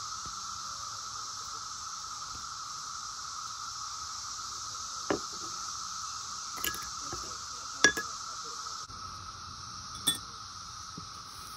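Cicadas buzzing steadily in the background, with four sharp glass clinks, the loudest about eight seconds in, as a glass measuring cup is handled and a metal strainer is set on it.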